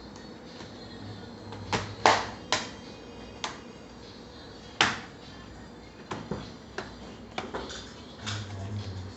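Irregular sharp clicks and taps of small hard objects, loudest about two seconds in and again near five seconds, over a low hum that comes and goes.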